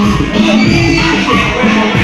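Loud live music from a stage performance.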